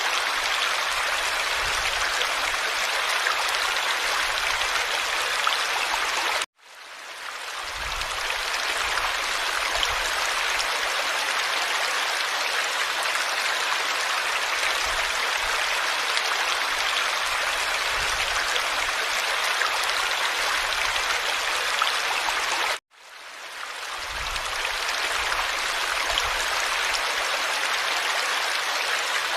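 Steady rushing of running water, an even hiss. It cuts out abruptly twice, about a quarter of the way in and again about three quarters through, each time fading back in over a second or so, as a looped recording restarts.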